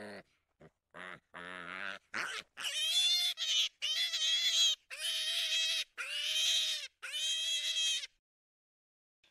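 Wild boar grunting in short low calls, then about six high-pitched squeals, each under a second long, before the sound stops near the end.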